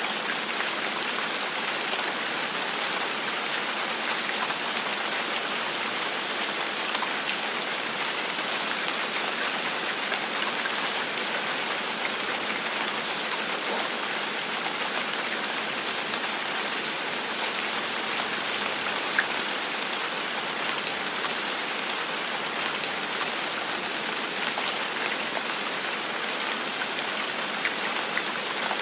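Steady gentle rain falling on a surface, an even patter with scattered individual drop ticks, one a little louder about two-thirds of the way through.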